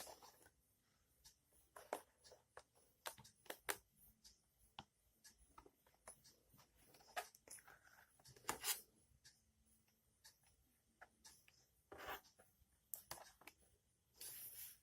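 Faint, irregular clicks, taps and rustles of hands handling a portable DVD player and its packaging, with a longer rustle near the end.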